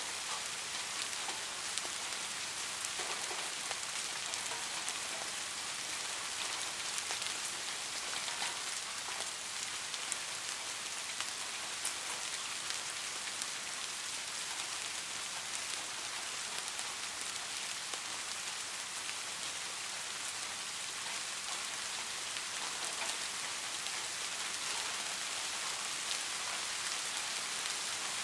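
Steady rainfall: a dense, even hiss of drops pattering on surfaces, with many small drop ticks and no change in strength.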